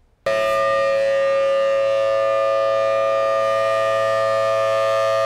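Outdoor tornado warning siren sounding a steady, unwavering tone made of several pitches at once. It starts abruptly about a quarter second in, at full loudness, with no wind-up.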